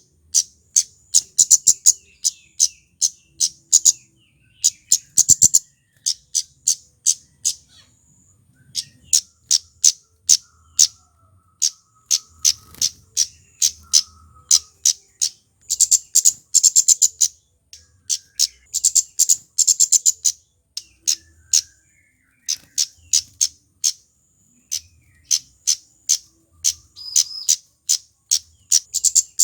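Male kemade flowerpecker calling: a rapid run of sharp, high chipping notes, several a second, in long bursts with a couple of brief pauses.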